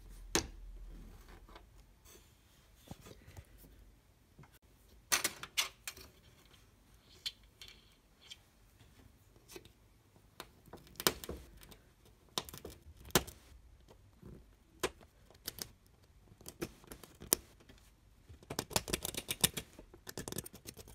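Metal tweezers clicking and scraping against a TV backlight LED strip while prying off a defective SMD LED: scattered sharp clicks, with a quick run of them near the end.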